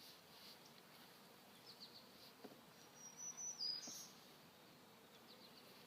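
Near silence: quiet outdoor ambience with a few faint high bird chirps, one about two seconds in and a brief high call a little past the middle.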